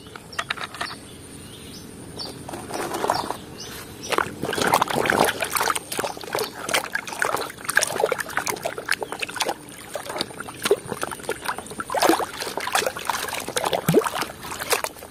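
Hands scrubbing a plastic toy in a basin of muddy water: irregular sloshing and splashing that picks up about three seconds in.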